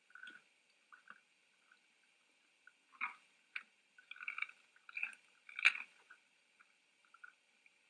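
Red deer munching feed at a trough: irregular, faint crunching bites and chewing, busiest in the second half.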